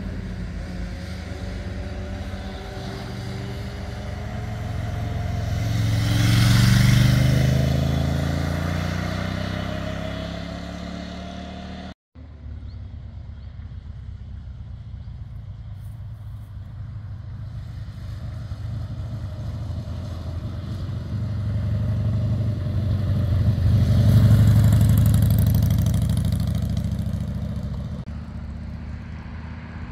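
Motorcycle engine passing by on a winding road, growing louder as it approaches and falling in pitch as it moves away. After a short break about twelve seconds in, another motorcycle passes the same way, loudest near the end of the second third.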